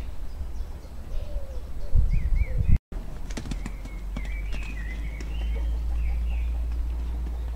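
Small songbirds chirping and calling over a steady low rumble of wind on the microphone. The sound breaks off for a moment about three seconds in, and a few sharp clicks follow.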